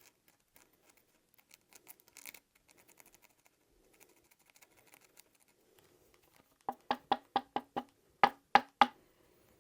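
Faint scratching of scrubbing on the rifle's metal parts, then near the end two quick runs of sharp, ringing taps on a hard object: about six, then three louder ones.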